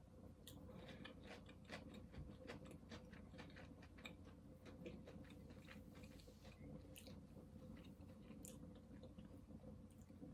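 Close-up chewing and biting: a quick run of small crisp clicks and crunches, densest in the first few seconds and thinning out near the end, over a faint steady hum.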